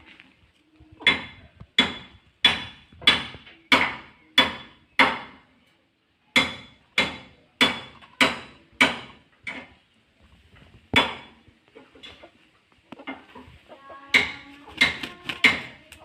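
A run of sharp knocks, each with a short metallic ring, about one and a half a second, broken by pauses of a second or so and one longer gap.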